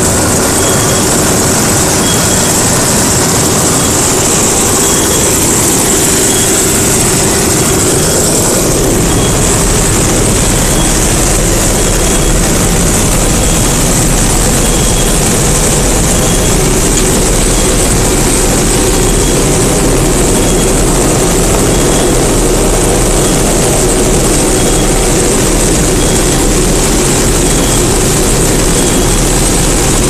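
D80 combine harvester running under load while harvesting soybeans, heard from the cab: a loud, steady mechanical drone of engine, reel and threshing. A deeper low rumble comes in about nine seconds in, and a faint high beep repeats about once a second.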